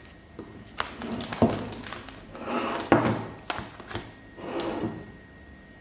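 Dishes and a tray being moved about and set down on a wooden table: a few short knocks and taps, with rustling in between.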